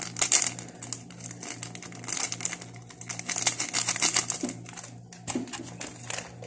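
A dense run of small clicks, taps and crinkles from objects being handled on a table, over a steady low hum.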